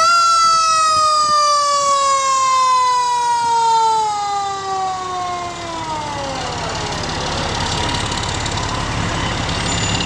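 Fire engine siren at its peak, then sliding slowly down in pitch and fading out over about seven seconds, with the rumble of passing fire trucks underneath.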